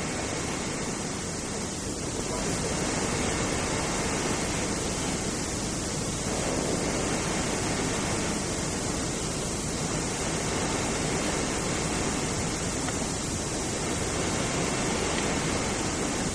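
Steady, even hiss with nothing else standing out: the background noise of an old camcorder recording.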